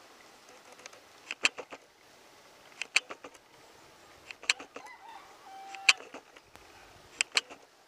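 Short, sharp clicks in groups of two to four, repeating about every one and a half seconds over a faint steady hiss.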